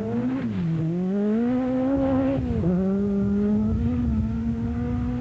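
Peugeot 205 T16 rally car's turbocharged four-cylinder engine at high revs on a gravel stage. Its note rises, dips briefly, climbs again, then drops sharply once about two and a half seconds in and holds steady.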